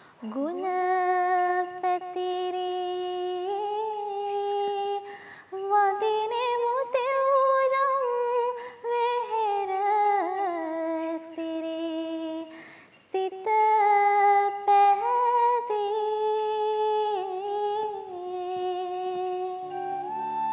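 A girl's voice singing a slow, unaccompanied devotional melody, holding long notes in phrases broken by short pauses for breath.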